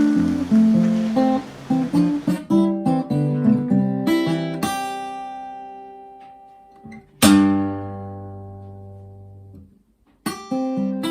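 Solo instrumental music: a run of quick notes gives way to slower notes that fade. A loud chord about seven seconds in rings out and dies away, then after a short gap another chord begins near the end.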